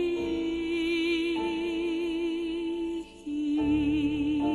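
A woman singing a gospel hymn, holding one long note with a steady vibrato. It breaks off briefly about three seconds in, and then a lower note is held.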